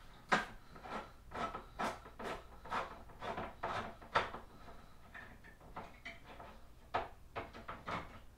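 Hand-crank can opener working its way around a can of lima beans, a run of short clicks about two a second that thins out after about four seconds.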